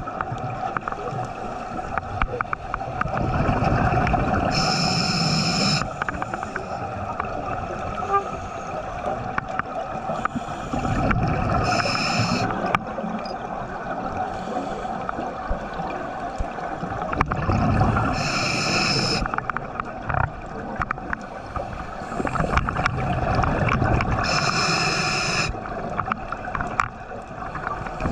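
Scuba diver breathing through a regulator underwater: a short hiss with each breath and low gurgling bubbles, repeating about every six seconds.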